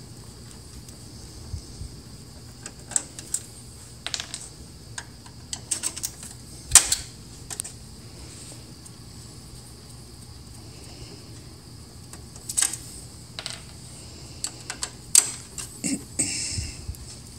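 Screwdriver working screws out of an HP LaserJet 4250 printer's sheet-metal frame: irregular metallic clicks and taps, the loudest about seven seconds in, over a faint steady hum.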